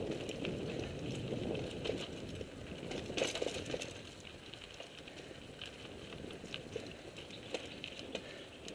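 Mountain bike rolling over a rocky, gravelly dirt trail: tyres crunching and the bike rattling, with many scattered clicks and knocks. It grows quieter about halfway through.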